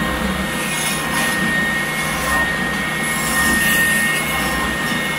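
Scheppach OSM600 oscillating belt sander running steadily, with a low motor hum and a steady high whine, as a thin wooden strip is sanded against the rounded end of its belt.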